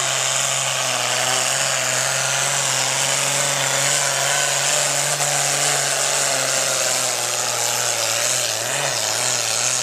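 Pro Farm class tractor-pull tractor running flat out while pulling the sled, a steady engine note under a high whine; the note sags a little near the end as the pull winds down.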